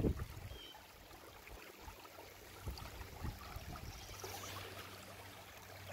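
Faint, steady trickle of a shallow creek running over rocks, with a couple of soft knocks a little under halfway through.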